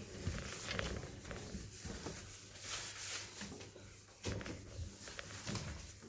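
Faint scattered light knocks and rustling from handling and wiping out a guinea pig cage.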